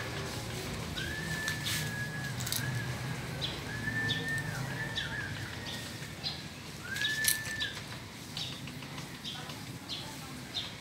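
A bird pecking at a branch: short, sharp taps at an uneven pace of about two a second. A few clear whistled bird notes, each under a second long, sound over the taps in the first two-thirds.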